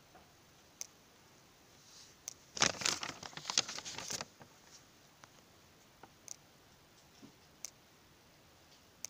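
Printed paper question sheet being handled and turned, a rustle of paper about two and a half seconds in that lasts about a second and a half. Faint sharp clicks sound now and then.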